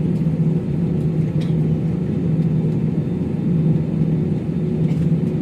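Jet airliner engines running, heard inside the passenger cabin: a steady rumble with a constant low hum.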